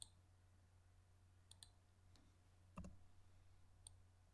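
Faint computer mouse button clicks: a quick pair about one and a half seconds in and a single click near the end, over a low steady hum. A soft low thump comes just before three seconds.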